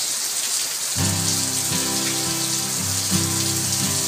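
Heavy tropical rain pouring down steadily. About a second in, background music with sustained notes comes in over it.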